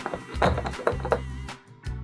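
Background music with a steady bass line, punctuated by a few short sharp clicks.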